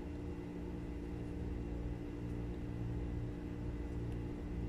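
Steady low mechanical hum with a fixed tone, gently swelling and easing, and no distinct handling sounds over it.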